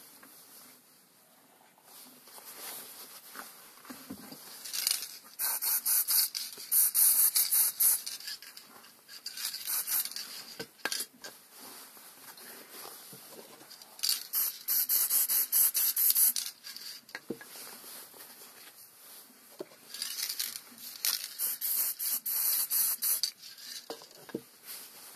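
Aerosol spray can hissing in four bursts of one to three seconds each, with a few light knocks in between.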